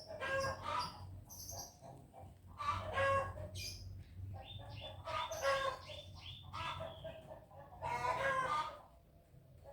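Chickens clucking and calling in several bursts, over a steady low hum.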